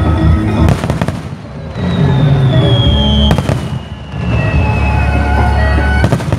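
Aerial fireworks display: shells bursting in sharp bangs about a second in, in the middle and just before the end, with crackling in between, over music.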